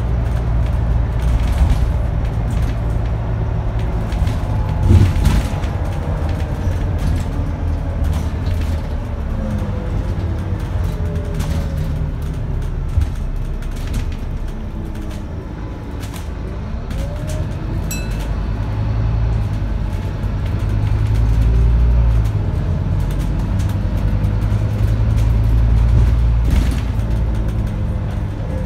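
Scania N230UD double-decker bus with its Scania DC9 five-cylinder diesel, heard from inside the passenger saloon while driving: a steady engine drone with whines that glide up and down as the speed changes. It eases off around the middle, pulls harder again in the second half, and a few knocks and rattles come through the body.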